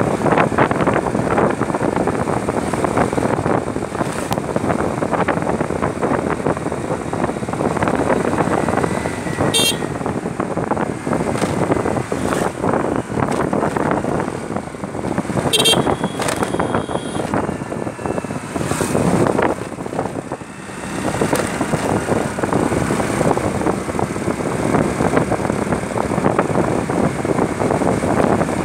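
Road noise of a moving two-wheeler: wind rushing over the phone's microphone over the running engine, a dense steady roar that dips briefly about twenty seconds in.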